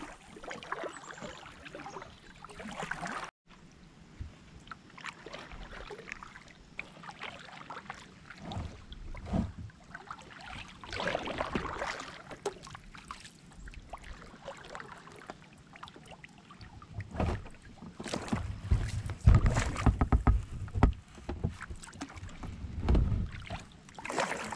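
Kayak paddling on a river: paddle blades dipping and splashing unevenly, with irregular knocks. Heavier low thumps come in the last third.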